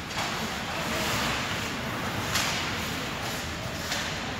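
Ice hockey game sound in an indoor rink: a steady hiss of skates on the ice and hall noise, broken by a few sharp knocks of play.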